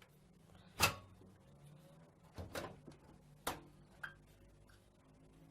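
A computer power supply unit being handled and fitted into a metal PC case: a series of sharp knocks and clunks, the loudest about a second in, then a few more every second or so.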